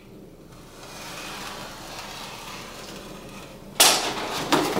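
Utility knife drawn through a cork underlayment sheet, a steady scratchy scrape lasting about three seconds. Near the end come two sudden, louder scuffing noises, under a second apart.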